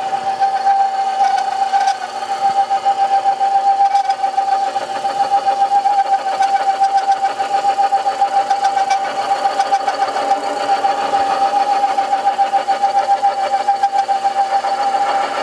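Sherline mini metal lathe running under a light facing cut, the tool shaving a 0.010-inch pass across the end of a lubricated metal bar. It makes a steady whine that pulses rapidly.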